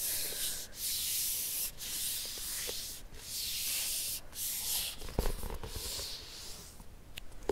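Slow rubbing or swishing strokes close to the microphone, each about a second long, five or so in a row, fading toward the end.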